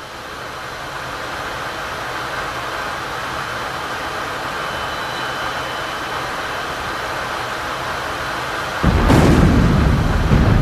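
A steady rushing noise slowly grows louder. About nine seconds in, a loud bomb explosion breaks in with a heavy, long low rumble.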